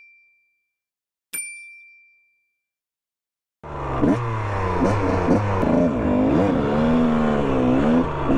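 A bright chime ding rings out and fades over about a second, in dead silence. Then, about three and a half seconds in, off-road motorcycle engines start running and revving, their pitch rising and falling.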